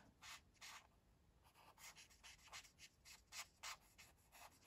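Faint scratchy strokes of a Stampin' Blends alcohol marker colouring on white cardstock. The strokes are short and back-and-forth, about three a second, irregular.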